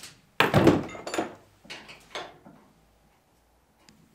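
A heavy thunk about half a second in, followed by two lighter knocks, as casters are snugged down onto a steel welding cabinet with a cordless drill.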